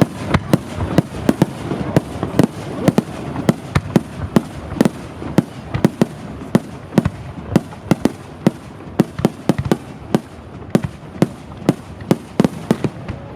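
Fireworks display: a rapid, irregular run of sharp bangs from aerial shells bursting, two to three a second.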